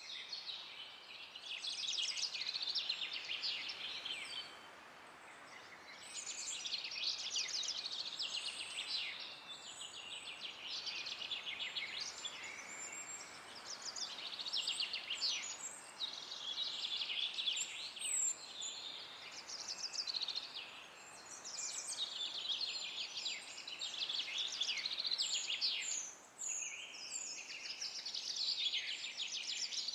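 Forest birds singing in repeated rapid trills, each lasting a few seconds, with short high chirps between them, over a soft steady hiss of wind.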